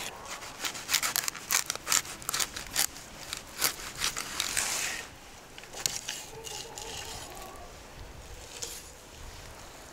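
Knife blade cutting along the backbone of a large salmon, crunching through the rib bones in a quick series of crackles and snaps for about the first five seconds, then quieter.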